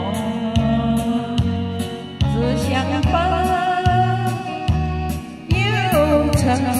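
Instrumental introduction of a Mandarin pop ballad: a lead melody line with vibrato over a steady bass and drum beat.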